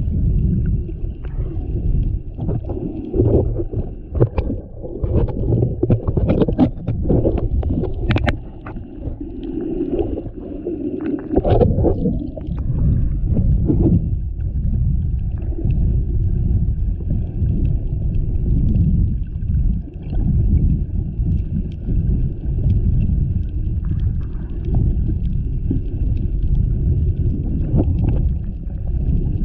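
Muffled, steady low water rumble heard through a GoPro's housing while snorkeling, with a run of sharp clicks and splashes in the first half that then settles back to the rumble.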